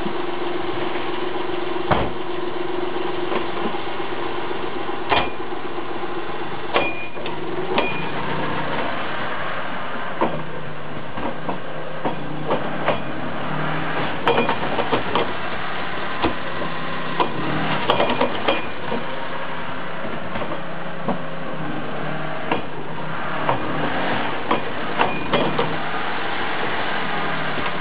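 Mitsubishi Minicab U62T kei truck running, with irregular sharp clicks and knocks over the steady engine hum. The knocks come from a broken universal joint in the propeller shaft, which makes the noise when drive is sent to the rear wheels.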